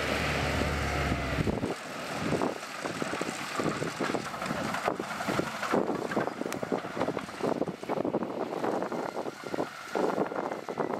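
Diesel engine of heavy earthmoving equipment running at a sand site. A strong low engine hum drops away about two seconds in, leaving rough, irregular noise with wind buffeting the microphone.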